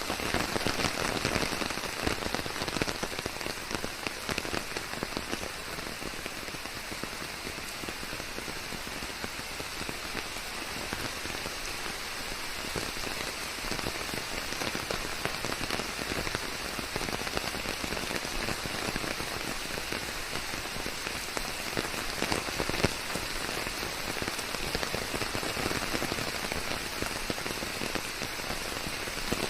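Steady rain falling, a dense patter of drops with an even hiss, mixed with white noise.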